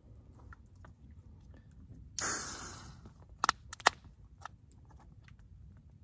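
Aluminium beer can being opened: a sudden hiss of escaping gas about two seconds in that fades within a second, then two sharp metallic clicks from the can's tab.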